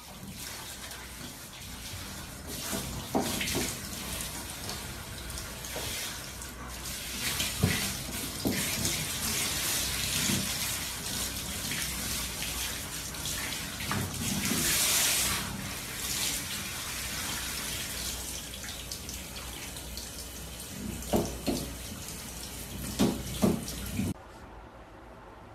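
Water running from a handheld shower head and spraying onto a dog's coat, a steady hiss with a few short louder splashes or knocks over it. It cuts off suddenly shortly before the end.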